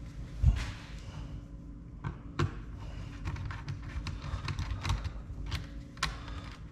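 Screws being taken out of a car's console with hand tools: a thud about half a second in, then a run of small clicks and taps.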